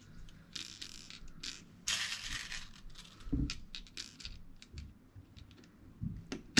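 Small metal airgun parts being handled on a wooden bench: a couple of short scraping rattles, then a quick run of light clicks and clinks.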